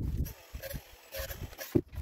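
Irregular knocks and clatter from tools and a stone siding panel being handled against a wall on a wooden deck.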